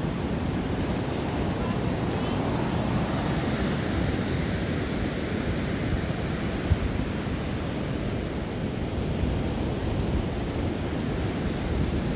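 Steady low noise of wind buffeting the microphone over the wash of surf, with one brief knock a little past halfway.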